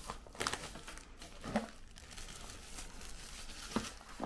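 Plastic wrapping crinkling and a small cardboard box being handled and opened, in scattered rustles and light clicks.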